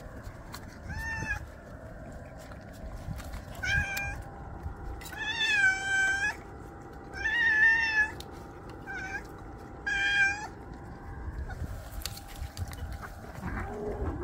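Stray cats meowing for food: six separate meows one to two seconds apart, the longest drawn out for about a second near the middle.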